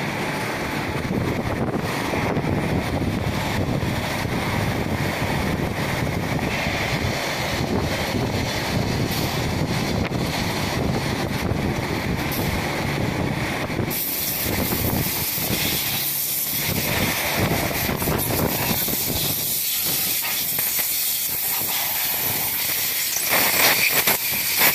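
Steady, loud hissing and machine noise from EVA sole injection-moulding machines. The hiss turns brighter and sharper about halfway through. A few knocks come near the end.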